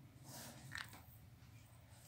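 Near silence: quiet room tone with a low steady hum and a couple of faint, brief rustles.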